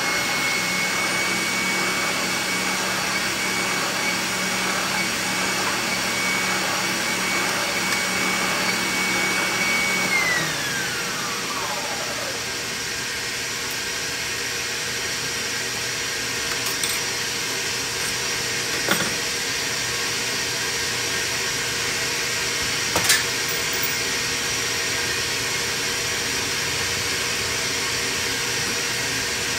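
Spindle sander motor running with a steady whine, then switched off about ten seconds in, its pitch falling as it spins down. A shop vacuum runs on underneath the whole time, and a few sharp metal clinks come later as the drum is changed with a wrench.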